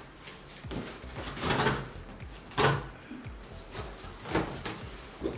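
A cardboard shipping box being cut open with a box cutter and its flaps pulled back: a few separate scraping, rustling strokes of cardboard, the sharpest about two and a half seconds in.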